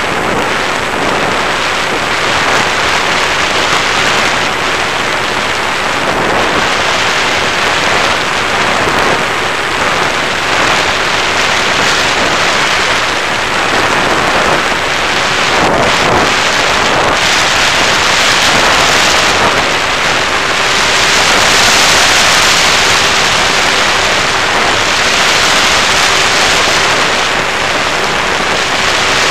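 Steady rushing of the airstream over the onboard camera's microphone on an FPV Raptor model plane in flight, with the faint steady hum of its electric motor and propeller underneath. The rush swells a little about three-quarters of the way through.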